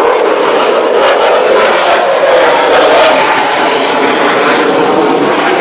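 Eurofighter Typhoon's twin Eurojet EJ200 turbofans in a loud, steady jet roar during a display pass, with a crackling rasp about a second in.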